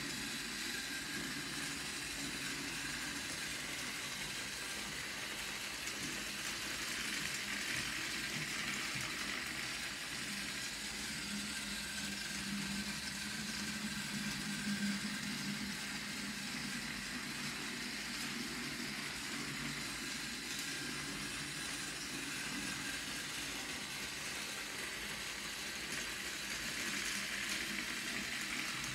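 Motorized TrackMaster Dart toy engine running steadily around plastic track, pulling trucks: a constant battery-motor and gear whir mixed with the rattle of small wheels, swelling a little twice.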